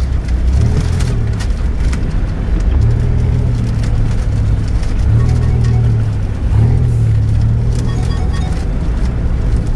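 Off-road 4x4 SUV engine pulling along a rough, muddy dirt track, heard from inside the cab. The low engine note rises and falls several times as the driver works the throttle. Scattered knocks and rattles come from the vehicle bouncing over the ruts.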